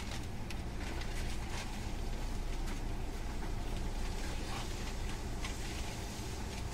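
Hankyu 9000 series electric commuter train running at speed, heard from inside the car: a steady rumble of wheels on rail with scattered short clicks.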